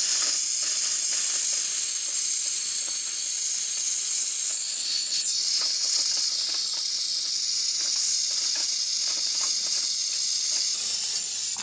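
Gas torch burning with a steady hiss, set to a soft flame for tinning copper parts with soft solder; the hiss stops abruptly near the end.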